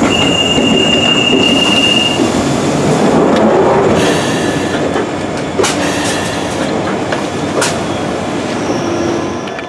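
London Underground 1962 Stock rail adhesion train running past, its wheels and running gear making a steady rumble. A high, steady wheel squeal sounds for the first two seconds, and a few sharp clicks come around the middle. The sound eases slightly toward the end.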